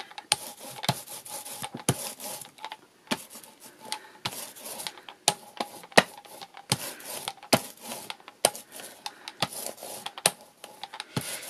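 A paint tool rubbing and scraping over paper in short, rough, irregular strokes, about one or two a second, with sharp clicks between them.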